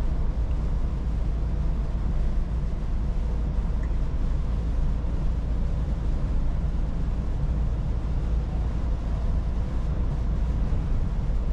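Scania S450 truck driving at steady cruising speed: the even drone of its 13-litre six-cylinder diesel together with tyre and road noise.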